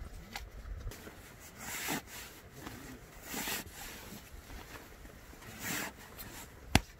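Nylon fabric rustling in short swishes as a sleeping bag is stuffed into its compression sack, with a sharp click near the end.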